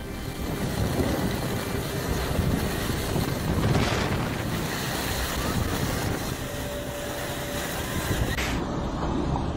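Strong storm wind buffeting the microphone, with a steady rushing noise and a couple of louder gusts.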